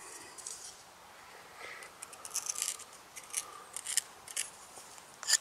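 Faint, irregular scraping and rubbing of wood on wood from a bushcraft hand-drill fire set: the spindle and hearth board being handled. The strokes come more often toward the end and turn into short, even rubbing strokes as drilling begins.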